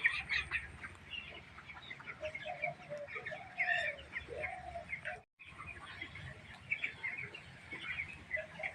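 A flock of young broiler chickens peeping and chirping continuously, with lower drawn-out calls among them. The sound cuts out for a moment about halfway through.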